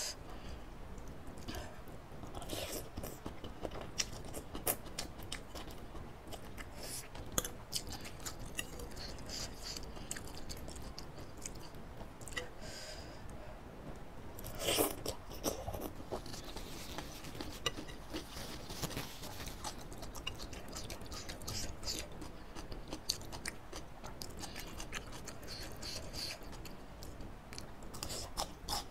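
Close-miked eating of instant laksa noodles with bok choy and bean sprouts: wet chewing, crunching of the greens and slurping of noodles, with mouth clicks throughout and one louder slurp about halfway through.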